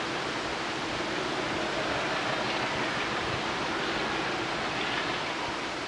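Diesel locomotive approaching under power, heard as a steady rushing engine noise with a faint low hum.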